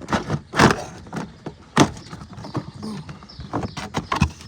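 Irregular sharp clicks and knocks of plastic door trim clips and panel pieces being pulled out and handled, the loudest about half a second and about two seconds in.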